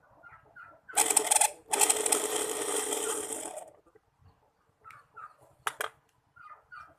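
Small 775 DC motor whirring in two brief runs, a short burst about a second in, then a longer run that winds down.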